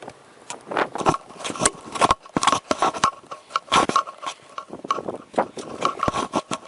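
Rapid, irregular knocks, scrapes and rustles of movement and gear rubbing close to a police body camera, with a thin steady tone that comes and goes underneath.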